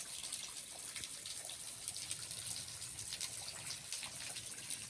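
Small waterfall splashing: a steady rush of falling water with many small splashes.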